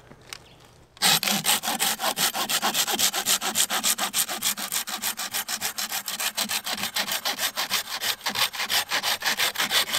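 Stedi folding pruning saw with a straight blade cutting through a dead, dry aspen branch: quick, even back-and-forth strokes, several a second, starting about a second in and keeping on steadily.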